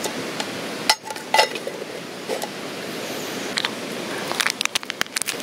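Metal tongs setting a metal lid onto a burning can of gel fuel: two sharp metallic clinks about a second in. Near the end comes a quick run of crisp clicks and crinkles as a stick sachet of instant coffee is handled and torn open, over a steady background hiss.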